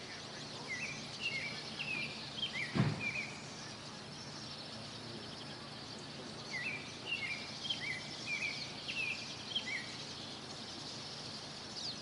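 Songbirds chirping: two runs of short, quick rising-and-falling notes, over a steady low outdoor hum. One dull thump about three seconds in.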